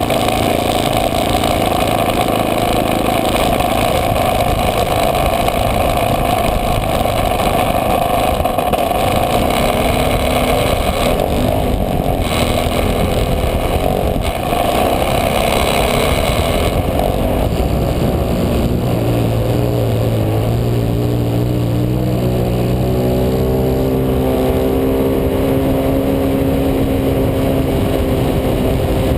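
Model airplane engine and propeller running at close range, a loud steady drone. In the second half its pitch shifts as the plane takes off and climbs.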